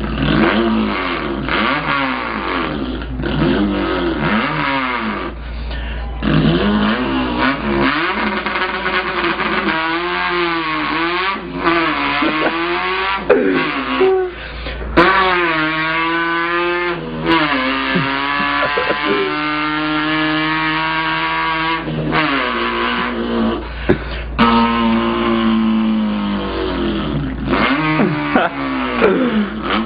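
A man imitating an import car's engine with his mouth: repeated revs that rise and fall in pitch, then held tones that step from one pitch to another like gear changes.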